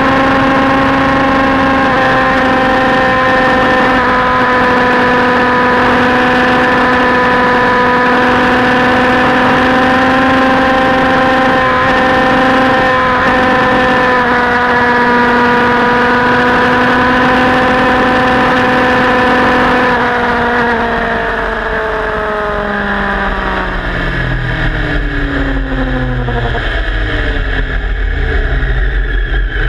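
Motorcycle engine heard onboard at speed, held at steady revs through a long curve for about twenty seconds, then its pitch falls steadily as the bike rolls off and slows, with a low rumble growing underneath.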